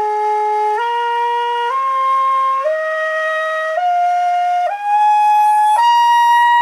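Hitoyogiri, a short end-blown Japanese bamboo flute, playing the hyojo-mode scale slowly upward: seven clear held notes stepping up about one a second, the top note sustained from about six seconds in, with breath noise audible around it.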